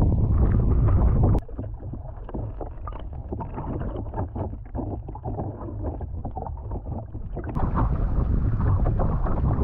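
Water rushing and splashing along a boat's hull at the waterline, close to the microphone. About a second and a half in it cuts abruptly to a muffled, quieter underwater sound. About seven and a half seconds in it cuts back to wind buffeting the microphone over water at the boat's side.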